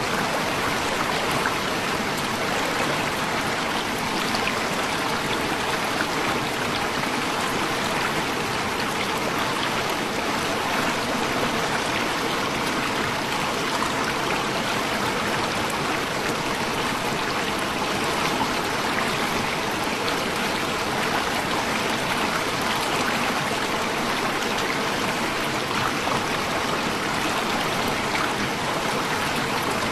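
Waterfall water rushing steadily, a constant noise that does not let up.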